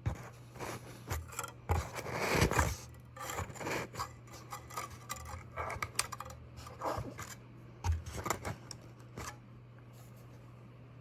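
Irregular scraping, rubbing and light clicks of a new speaker voice coil and its lead wires being handled and fitted into the speaker, with the longest and loudest scrape about two seconds in. A steady low hum runs underneath.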